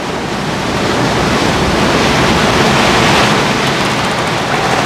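Sea waves washing in a steady rush of surf, swelling slightly toward the middle.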